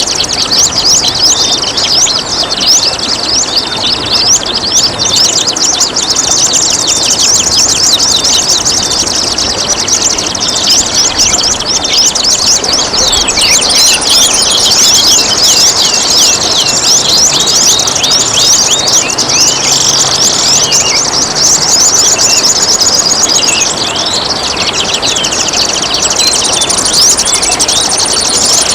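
Many songbirds chirping and singing in fast, dense trills, over the steady rush of trickling water.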